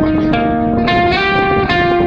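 Background music: a plucked guitar melody, one note after another.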